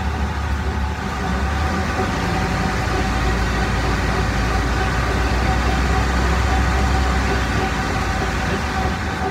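Rear differential and driveshaft of a 2008 Dodge Ram 1500 Hemi turning in reverse with the rear wheels off the ground and the engine running. It makes a steady low drone with a thin whine on top. This is the differential noise the owner is trying to diagnose, which a fluid change did not cure.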